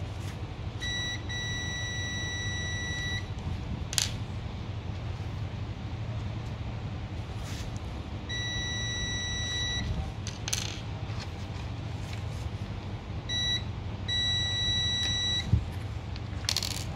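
Digital multimeter in continuity mode beeping with a steady high tone each time its probes bridge a glass cartridge fuse: three beeps of one to two seconds, two of them led by a short blip. Each beep signals continuity, meaning the fuse is good. Light clicks of the probes on the fuse caps fall between the beeps, over a low steady hum.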